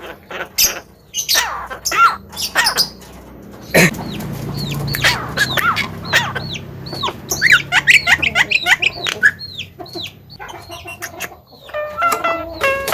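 Javan myna calling: a busy mix of sharp clicks, a loud harsh squawk about four seconds in, and many quick whistled notes that swoop up and down.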